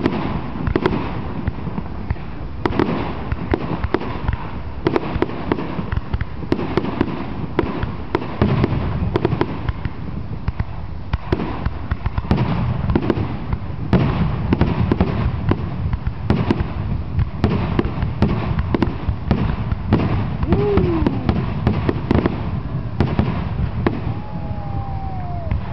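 Aerial fireworks display: shell after shell bursting in quick succession, a steady string of booms and sharp cracks with crackling in between.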